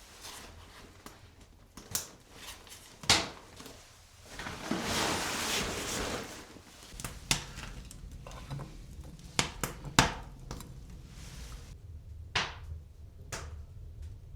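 Scattered knocks and clinks of objects being handled, with a few seconds of rustling in the middle.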